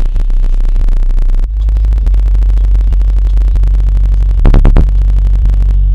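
Bass-heavy music playing loudly through a car audio system's two TNT 10-inch subwoofers, powered by a 4480 amplifier, heard inside the car's cabin. A very deep, sustained bass comes in about a second and a half in, with a few short hits near the end.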